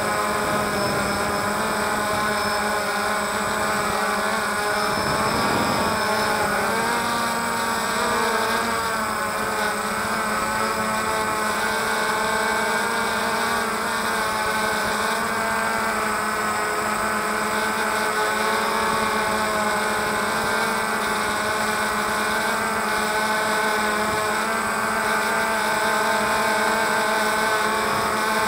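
DJI Phantom quadcopter's motors and propellers running steadily in flight, a multi-toned drone whine whose pitch wavers briefly about five to six seconds in.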